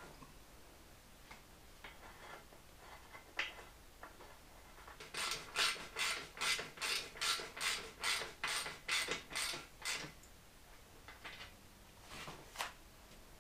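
Hand socket ratchet worked in a steady run of about a dozen quick strokes, between two and three a second, each with its ratcheting click. A few scattered tool clicks and taps come before it.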